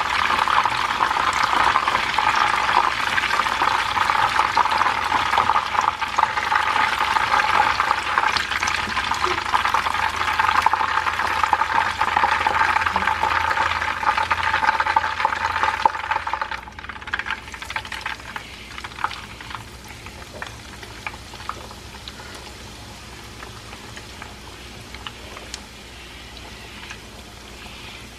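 Battered chicken pieces deep-frying in hot oil in a frying pan: a dense, steady sizzle and crackle. About halfway through it drops to a much quieter sizzle with scattered pops.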